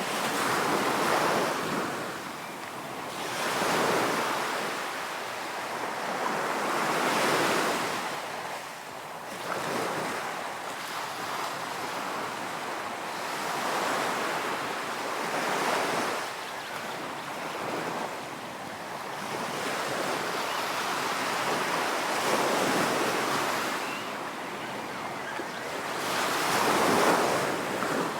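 Ocean waves breaking and washing on a beach, the surf swelling and fading every few seconds.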